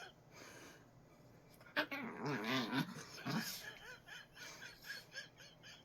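Small dog growling and whining in a wavering, agitated voice starting about two seconds in, then a quick string of short high whimpers: a dog crying in protest at being held.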